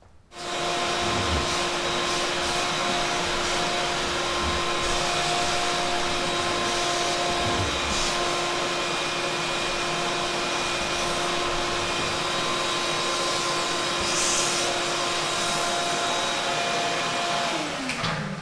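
Shop vacuum running steadily, switched on just after the start; near the end it is switched off and the motor winds down with a falling whine.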